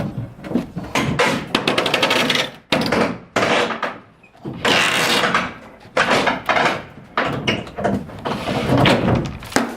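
Irregular loud knocks, bangs and scraping rattles of building materials being shifted and pried during hand deconstruction of a house.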